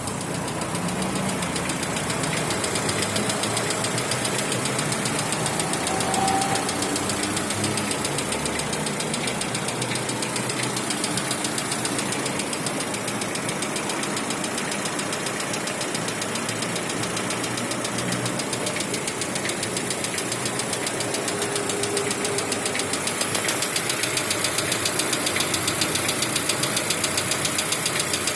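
Lada Vesta 1.6 petrol engine idling cold with a fast, even knocking, which the owner puts down to the hydraulic lash adjusters and piston slap before warm-up. It gets louder for the last few seconds.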